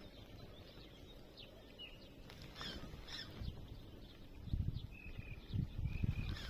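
Birds calling in short chirps, with a few drawn-out whistled notes about five seconds in, over gusts of wind buffeting the microphone in the second half.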